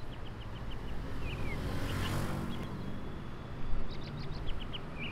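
Outdoor ambience fading in: a low rumble of traffic, with a rush of noise swelling and fading about two seconds in, and small birds chirping in short high notes throughout.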